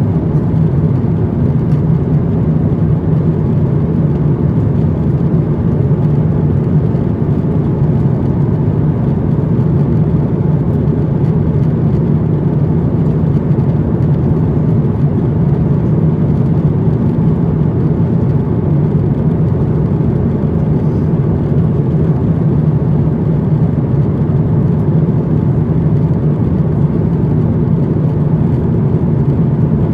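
Airbus A350-900 cabin noise in flight: a steady low drone of airflow and engines, unchanging throughout.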